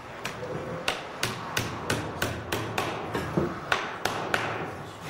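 A hammer driving nails into a bent-wood ring on a wooden chariot wheel's rim: about a dozen sharp strikes, roughly three a second.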